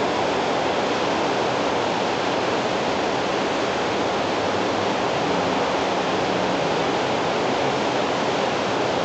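Steady, even hiss of background noise on the recording, with no other sound over it.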